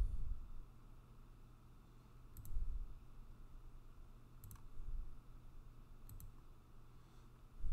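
Computer mouse clicks, three quick press-and-release pairs about two seconds apart. Low dull thumps are louder, at the start, about two and a half seconds in, and at the end.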